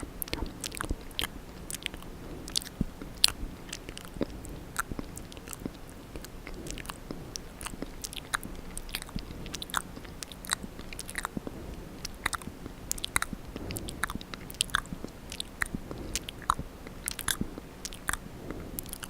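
Wet ASMR mouth sounds very close to the microphone: irregular clicks and smacks of tongue, lips and saliva, several a second.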